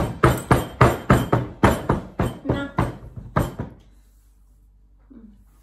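A rapid series of knocks with a clinking ring, about four a second, stopping about three and a half seconds in: a baby's shoes kicking and banging on a wooden table, rattling the dishes on it.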